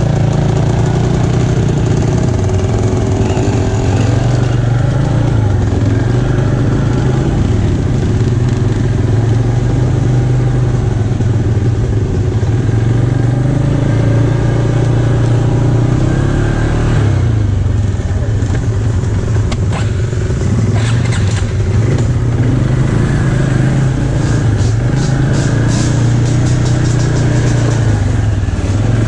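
Can-Am ATV engine running under load, its pitch shifting with the throttle, with a short run of sharp clicks in the last few seconds.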